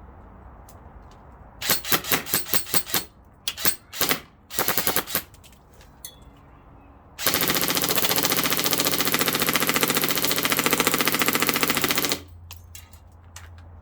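Airsoft M4 rifle firing: a quick string of single shots, two short bursts, then one long full-auto burst of about five seconds that stops abruptly.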